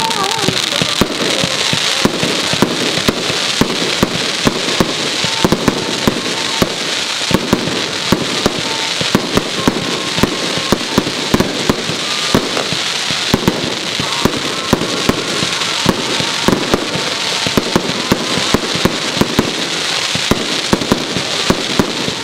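Fireworks barrage: a dense, unbroken run of bangs and crackles from aerial shells, several a second, over a steady hiss.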